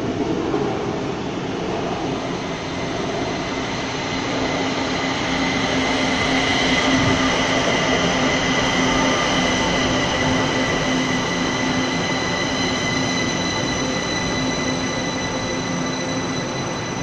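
Kaohsiung MRT Red Line high-capacity electric train running into the station along the platform. Its wheels and motors give a steady rumble with a high whine held on several steady pitches, loudest in the middle.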